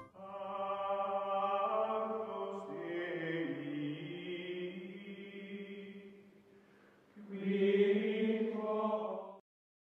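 Outro music of sustained choir-like chanting: long held chords that shift slowly in pitch and fade down about six seconds in. A louder final chord follows and cuts off abruptly near the end.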